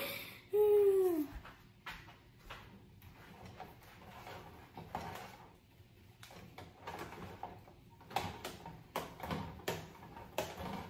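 A short vocal note about half a second in, then a utensil knocking and scraping in a stainless steel saucepan as potatoes are mashed and stirred: light, irregular taps that come more often near the end.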